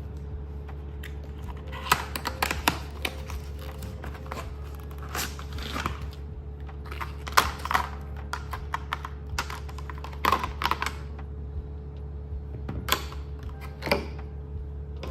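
Typing: irregular clusters of light key clicks and taps over a steady low hum.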